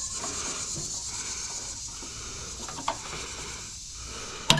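Flat metal bar scraping and clicking against an air-conditioner condenser's fan grille as it is worked into a notch to pry the cover off, with one sharp click near the end. A steady high insect hiss runs underneath.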